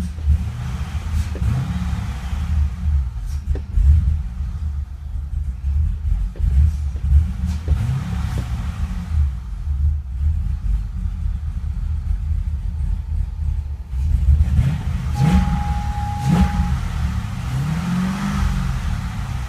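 Car engine running rough and uneven with a misfire, unable to hold a steady idle or rev cleanly. About three-quarters of the way through, a single steady beep sounds for about a second and a half.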